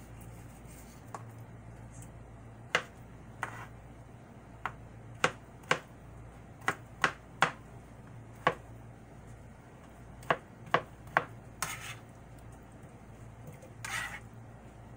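Kitchen knife cutting through a mango and knocking on a plastic cutting board: about a dozen sharp knocks at irregular intervals while the fruit is cubed, then a couple of short scrapes near the end as the blade sweeps the pieces together.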